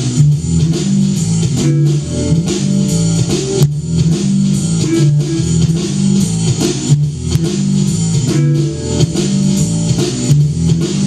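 Small rock band playing live: a busy electric bass line carries the low end, with electric guitar, keyboard and a drum kit keeping a steady beat.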